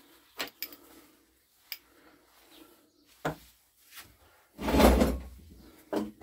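Handling noises at a workbench: several light knocks and clicks, then a louder scraping rustle with a dull thud lasting about half a second, about four and a half seconds in, and one more knock near the end.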